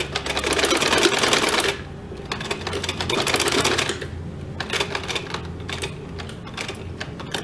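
Domestic sewing machine stitching in two fast runs of needle strokes, each under two seconds with a short pause between, as cloth strips are sewn down. A few scattered clicks follow.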